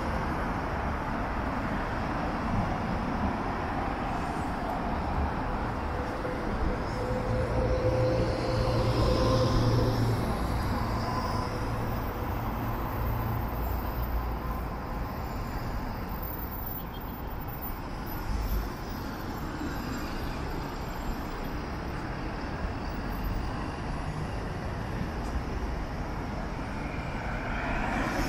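Steady city traffic noise heard from a moving bicycle on a busy street, with a vehicle rumble swelling louder about a quarter of the way through.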